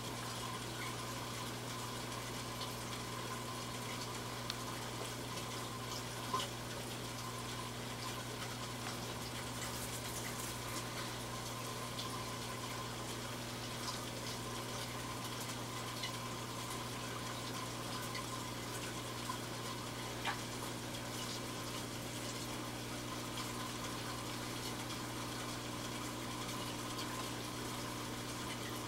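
Aquarium water circulating: a steady rushing with a low pump hum beneath it, and two brief faint clicks.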